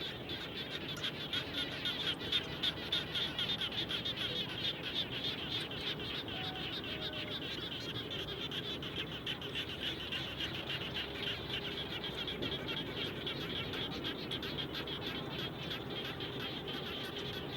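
Chorus of many frogs calling after rain, a dense, continuous mass of fast overlapping pulsed calls, a little louder a second or so in.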